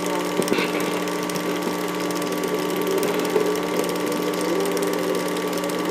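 Home-movie film mechanism running with a steady, rapid whir and clatter over a constant hum.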